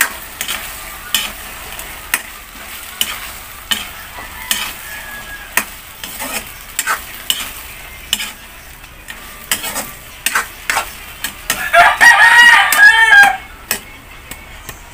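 Shrimp sizzling in butter in an aluminium wok while a wooden spatula stirs and knocks against the pan every half second to a second. About twelve seconds in, a rooster crows loudly for about a second and a half.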